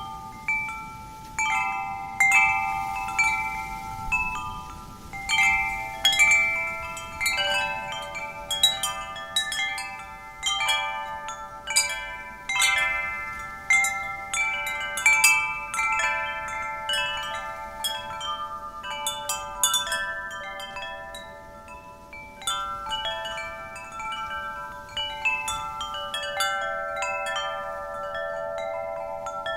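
Wind chimes ringing, their metal tubes struck irregularly by the wind, several strikes a second, each tone ringing on and fading as others overlap, over a faint steady wind.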